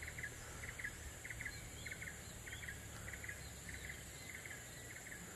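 An insect chirping in short pulses of rapid ticks, about twice a second, with a few faint higher chirps.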